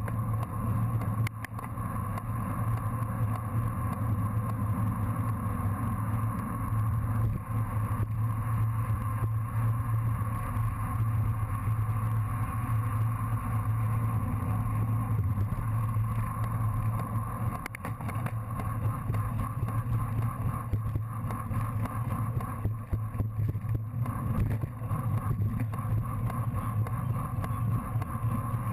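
Steady wind rush and rumble on an action camera's microphone, carried on a road bicycle racing at speed.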